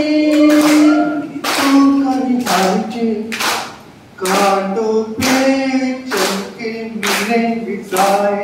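A man singing into a handheld microphone, holding long notes, with hands clapping along in time about once a second.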